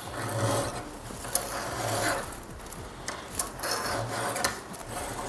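Flat file rasping across the steel depth gauge (raker) of a 3/8 chainsaw chain, over a depth-gauge tool set to "hard", lowering the raker. Slow scraping strokes come about every one and a half to two seconds.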